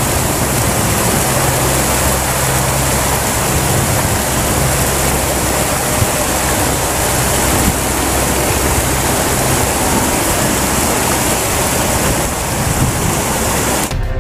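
Steady rush of flowing river water with a low steady hum underneath. It cuts off suddenly near the end and music starts.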